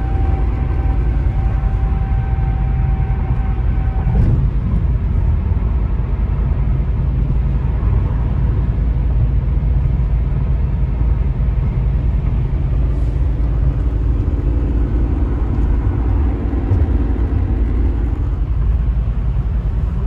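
Steady low rumble inside the cabin of a 1992 Nissan Gloria Brougham at highway speed, engine and tyre noise together. A steady high tone runs through the first four seconds and cuts off with a click.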